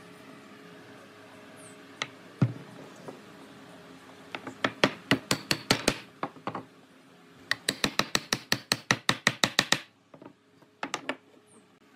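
A wooden block striking glued mortise-and-tenon joints to drive them home: two single knocks, then two long runs of quick taps several a second, and two last knocks near the end.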